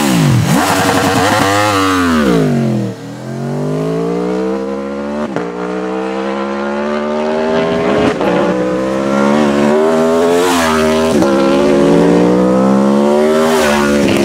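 Aprilia Tuono V4's 1077 cc 65-degree V4 engine under way. Its pitch drops over the first three seconds, then climbs steadily as the bike accelerates, with short breaks at each gear change.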